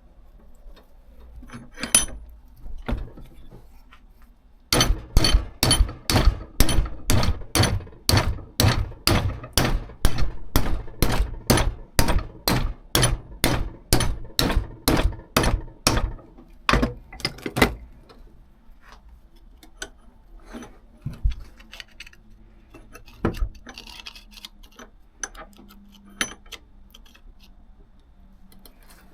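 Hammer blows on sheet steel clamped in a vise, beating a fold into a repair panel: a long, even run of sharp metallic strikes, about two and a half a second for roughly eleven seconds. Then two more blows, followed by scattered lighter knocks and tool clatter.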